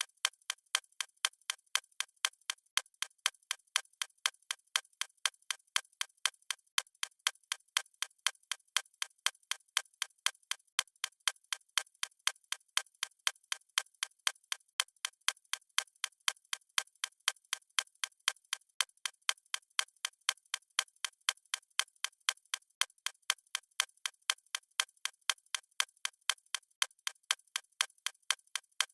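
Watch ticking steadily at several ticks a second, an even run of sharp, light clicks with no low end.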